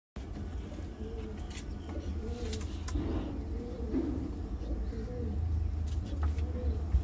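Domestic pigeons cooing: a run of short coos rising and falling in pitch, about one a second, over a steady low rumble, with a few faint clicks.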